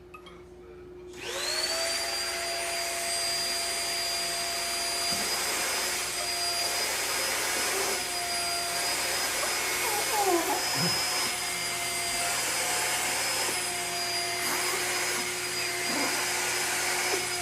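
Vacuum cleaner switched on about a second in, its motor spinning up with a rising whine and then running steadily.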